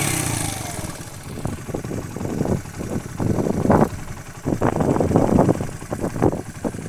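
Beta Alp 200's single-cylinder four-stroke engine dropping back from a rev and then idling unevenly, its exhaust coming in irregular pulses.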